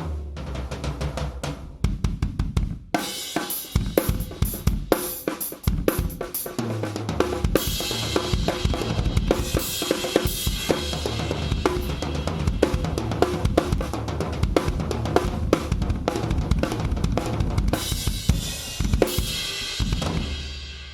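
PDP Concept Maple Classic drum kit played as a full groove: 24-inch bass drum, 13-, 16- and 18-inch toms and a 14x8 bronze snare. Cymbals join about three seconds in, then ring as a steady wash over the beat from about seven seconds on.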